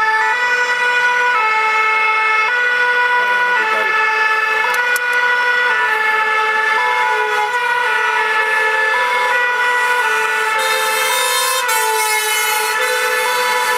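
Two-tone 'pin-pon' siren of a vintage French fire engine, sounding continuously and alternating between two notes about once a second.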